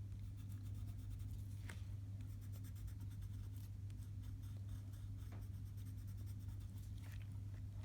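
Colored pencil scratching on paper in rapid, short back-and-forth strokes, over a steady low hum.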